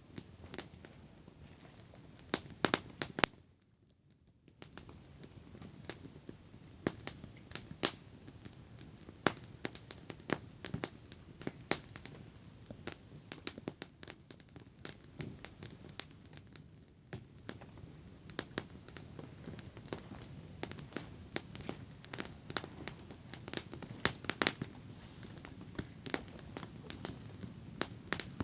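Small wood campfire crackling, with many irregular sharp pops over a soft steady hiss. It drops away for about a second, about four seconds in.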